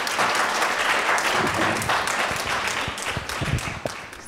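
Audience applauding a speaker, a dense patter of many hands clapping that dies away near the end.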